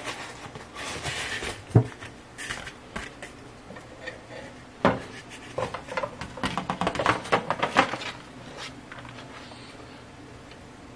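A knife knocking and scraping on a plastic cutting board as it is handled, with a sharp knock about two seconds in, another near five seconds, and a quick run of taps and scrapes from about five to eight seconds as the chopped scallions are gathered up.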